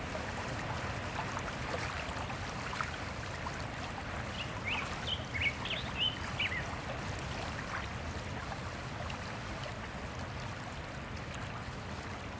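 Steady rushing background noise with a low rumble, and a few short chirps, like birds, about five to six and a half seconds in.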